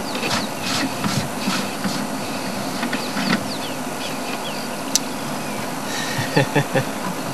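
Steady outdoor hiss with scattered light clicks and knocks from work on a vehicle's flat tyre, and a cluster of sharper knocks about six and a half seconds in.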